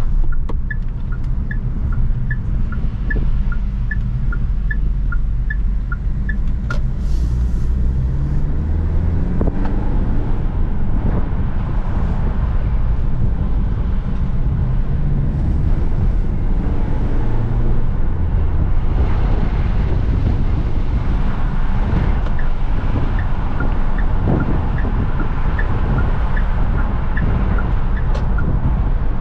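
Cabin sound of a Chery Tiggo 7 Pro's 1.6 turbo petrol engine and road noise while driving, with the engine's pitch rising as the car accelerates, about a third of the way in and again around the middle. A turn-signal indicator ticks in an even tick-tock, about one and a half a second, for the first several seconds and again from about three quarters of the way through.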